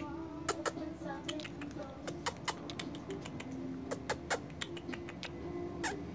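A string of short, sharp clicks or smacks at uneven spacing, about three a second, over faint steady low tones.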